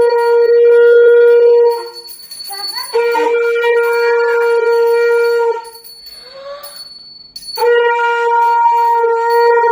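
Conch shell (shankh) blown in long, steady, horn-like notes, three blasts with short breaks for breath about two seconds in and again around the middle.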